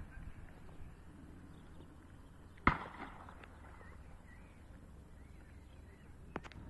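Quiet outdoor roadside ambience with a low rumble, broken by one sharp click about a third of the way in and two quick clicks near the end.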